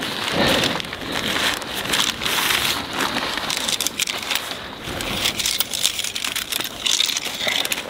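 A tent being pitched: shock-corded tent poles clicking as their sections are fitted together, over a steady crackling rustle of tent fabric and gear being handled.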